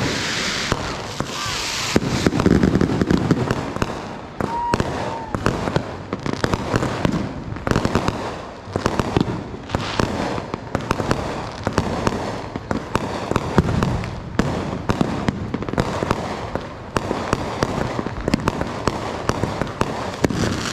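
Fireworks going off: a continuous rapid crackle of many bangs, with louder, heavier bursts in the first few seconds.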